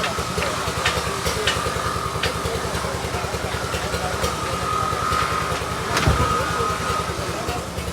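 An engine running steadily, with a continuous high-pitched whine over it, scattered sharp clicks, and a louder knock about six seconds in.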